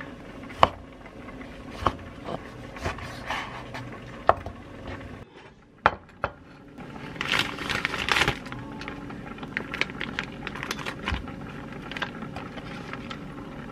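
A chef's knife cutting through a tomato onto a wooden chopping board: several sharp knocks in the first few seconds. Later a ceramic bowl is set on the board and food handled into it, with a burst of rustling and clatter about seven to eight seconds in.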